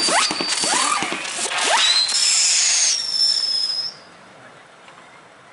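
Whistling fireworks: about three rising whistles in the first two seconds over the hiss and crackle of the display, then a long, steady, high whistle that cuts off suddenly about four seconds in.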